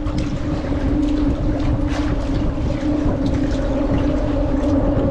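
A steady engine drone holding one low pitch, over a low rumble of wind and water, with a few faint clicks.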